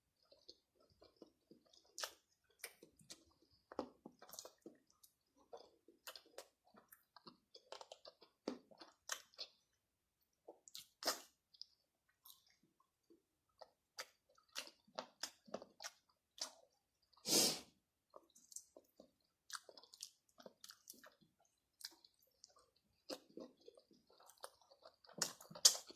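Close-up chewing and eating of fried chicken and spicy kimchi: irregular wet smacks, crunches and small clicks of mouth and food. One brief louder noise comes about two-thirds of the way through.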